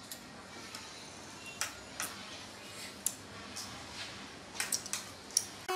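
Metal spoons clicking and scraping against small bowls while eating: scattered light clicks about every half second to second, bunching up near the end.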